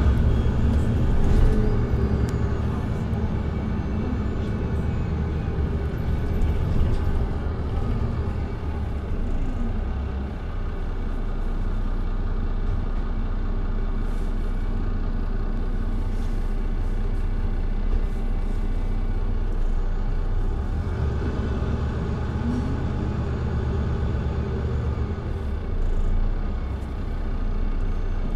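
Mercedes-Benz Citaro C2G hybrid articulated bus's engine and Voith automatic gearbox, heard from the rear seats just in front of the engine, running steadily while the bus drives, with a brief rising whine twice, about a third of the way in and about three quarters in.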